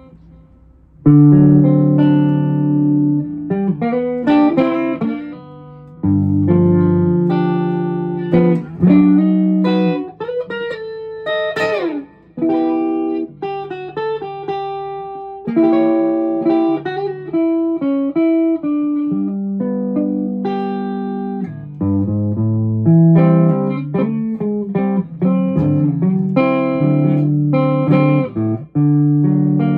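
Hollow-body electric guitar played solo in a clean tone, improvising melodic lines mixed with chords. It comes in about a second in, and a few notes are bent in pitch near the middle.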